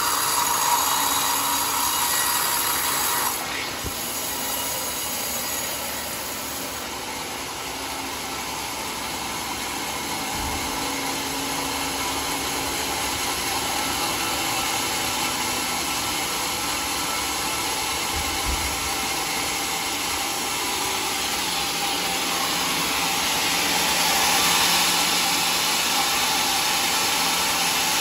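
Homemade band sawmill running steadily as its blade saws lengthwise through a large log. The sound drops a little about three seconds in and grows louder again near the end.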